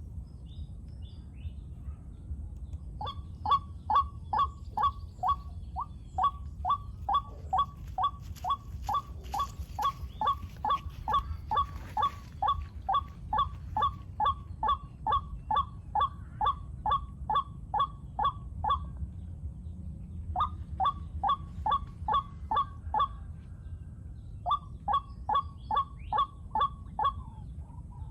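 White-breasted waterhen calling: a long run of repeated loud 'kwak' notes, about two or three a second, starting about three seconds in and breaking off twice briefly before resuming.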